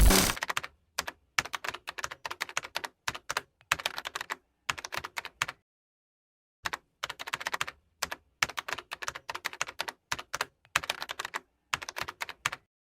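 Rapid, irregular clicking in short bursts, with a pause of about a second near the middle.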